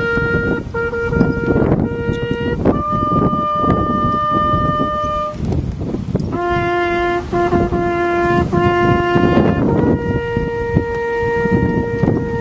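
Solo trumpet playing a slow call of held notes. It opens with short repeated notes, then holds a higher note, then plays four repeated lower notes, and ends on a long sustained note near the end, over a steady low background rumble.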